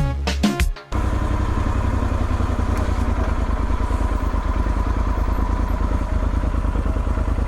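Music cuts off about a second in, giving way to a motorcycle engine running steadily underway, a fast, even low pulsing.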